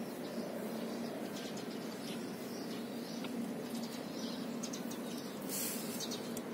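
Outdoor ambience: a steady low hum with small birds chirping faintly now and then.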